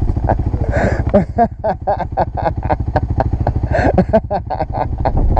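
VOGE 300 Rally motorcycle's single-cylinder engine idling steadily, a fast even low pulse.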